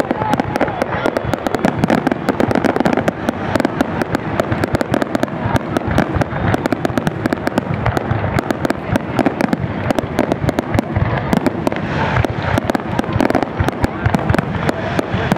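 Aerial fireworks going off in a dense, unbroken barrage: many sharp bangs and crackling reports a second, overlapping one another.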